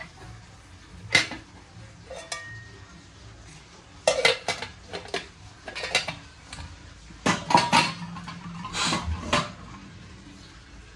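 Brass kitchen utensils being handled, clinking and knocking against each other in irregular clusters. A few strikes leave a brief metallic ring.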